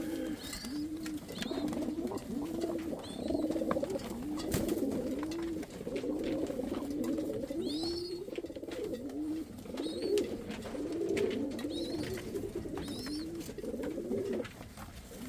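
Several domestic fancy pigeons, fantails among them, cooing over one another in a loft, the low rolling coos repeating about once a second without a break. A few faint high chirps come through now and then.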